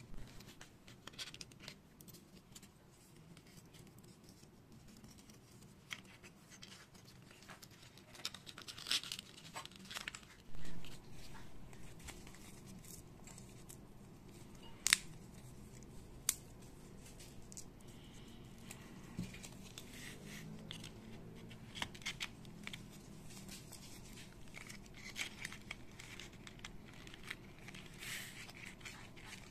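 Foam-board 3D puzzle pieces being folded and pushed into their slots: scratchy rustling of the foam board broken by scattered sharp clicks, with a louder bump about ten seconds in and the sharpest click about fifteen seconds in.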